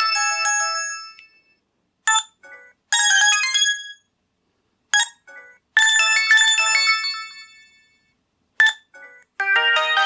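Samsung SGH G600 mobile phone playing its built-in ring-tone melodies one after another through its small speaker: bright, high chiming electronic tunes that start and fade out in turn, each preceded by a short blip. The first melody dies away in the opening second and a new one starts near the end.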